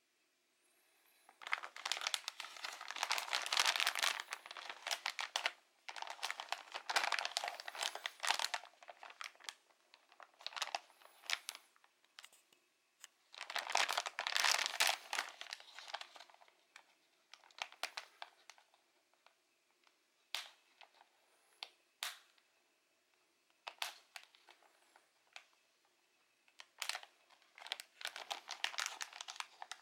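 Clear plastic packaging bag crinkling as it is handled and opened, in several bursts of a few seconds each, with a handful of single sharp clicks in between.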